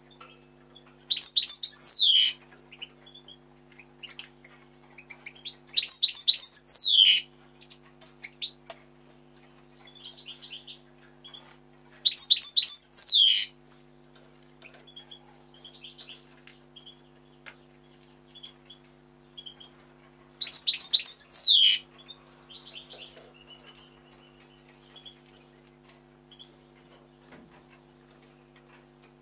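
European goldfinch singing: four loud phrases a few seconds apart, each a quick twittering run ending in a long downward-sliding note, with softer twitters in between.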